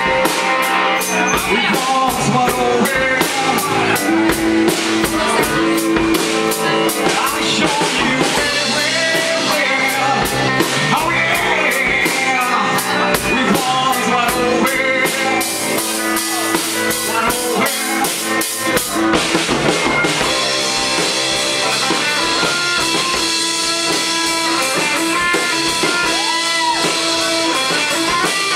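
Live rock band playing: drum kit, bass guitar and electric guitar, with a singer on a microphone. The drumming is fast and steady, then eases off about twenty seconds in under ringing guitar.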